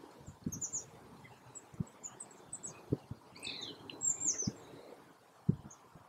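Small woodland birds, tits at a seed feeder, giving short high chirps and calls that are busiest between about three and four and a half seconds in. Soft low thumps are scattered among them.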